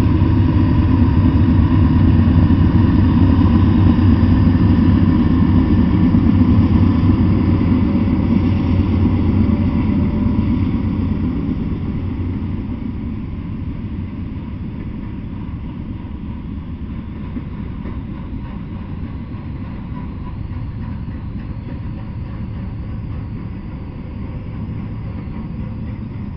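Freight train passing close by: diesel locomotives rumble past for about the first ten seconds, then the sound drops to a quieter, steady rolling of intermodal container cars on the rails.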